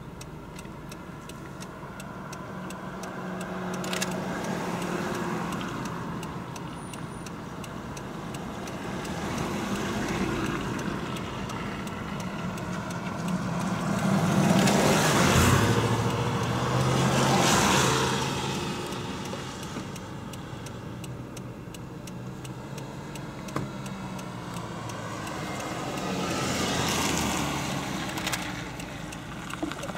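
Road traffic passing: vehicles drive by, each swelling and fading as its tyre and engine noise goes past, the loudest about halfway through and another near the end, over a steady low hum.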